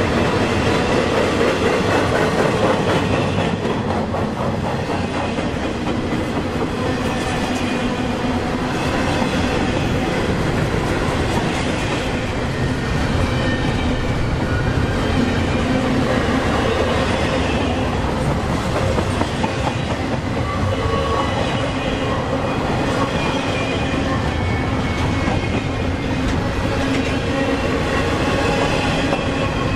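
Intermodal freight cars, double-stack well cars and trailer cars, rolling past close by: a steady rumble and clatter of steel wheels on rail, clicking over the joints. A thin steady ringing from the wheels runs through it.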